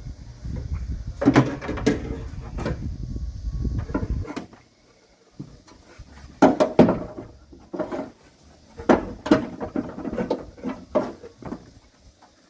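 Hard parts being handled: a low rumble for the first four seconds, then a scatter of clicks and clunks, bunched in two clusters.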